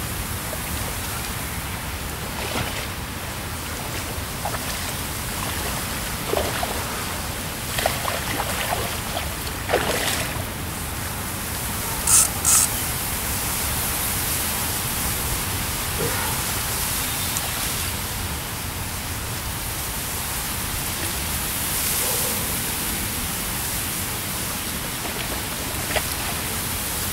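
Steady wind rumble on the microphone, with a few brief knocks and a pair of sharp clicks about twelve seconds in.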